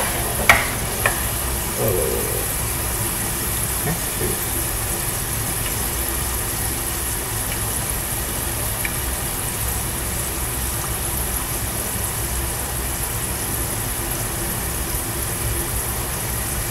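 French fries frying in oil in a pan on a gas burner: a steady low hum under a faint hiss, with a few sharp clicks of a metal utensil against the pan in the first second or so.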